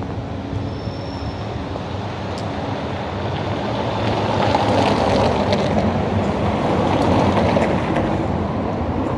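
A passing vehicle over a steady low hum, its noise swelling about four seconds in and easing off near the end.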